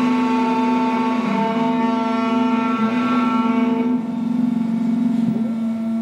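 Automatic key cutting machine milling a laser-track car key: a steady whine from its spindle and drive motors, several tones held together, which shift to new pitches as the cutter moves along the key. About five seconds in, one tone swoops down and back up.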